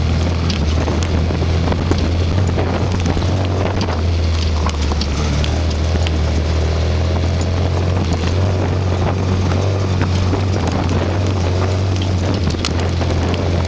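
Off-road vehicle engine running steadily at a constant pitch while driving on a dirt trail, with wind buffeting the microphone and scattered small clicks and rattles.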